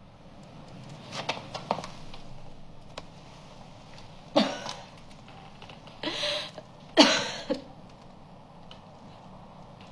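A young woman crying in short, gasping sobs. A few small catches come between one and two seconds in, then louder sobs about four and a half, six and seven seconds in.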